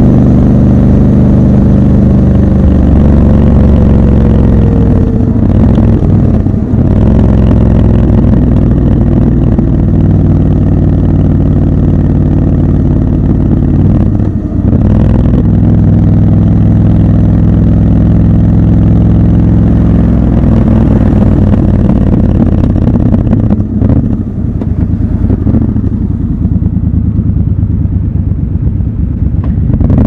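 Triumph Scrambler 1200 XC's 1200 cc parallel-twin engine running under way, its pitch shifting in steps through several gear changes with brief dips in between, and easing off near the end.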